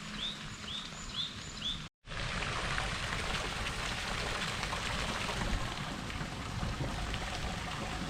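A bird chirps four times, about twice a second. Then, after an abrupt cut, a steady pattering hiss of water.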